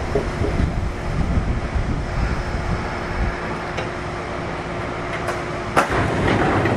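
Kintetsu 1233 series electric train heard from inside the car as it slows for a station: the rumble of wheels on rail under a steady whine from its Hitachi GTO inverter. About six seconds in comes a sharp clack, followed by a few lighter clicks.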